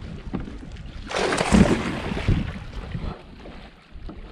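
A sudden splash about a second in as a big bass thrashes at the surface beside the kayak while being netted, with a couple of dull knocks; the fish comes off at the net.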